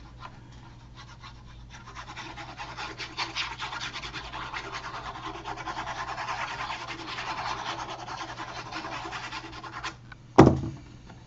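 The plastic nozzle of a liquid glue bottle scraping and rubbing along the edges of a sheet of card as a line of glue is run on, a busy scratchy rustle lasting several seconds. Near the end there is one sharp knock.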